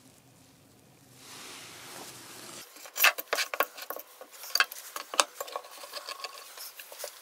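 A soft hiss, then an irregular run of sharp clicks and clacks: hard tool parts being handled and knocked together, with no motor running.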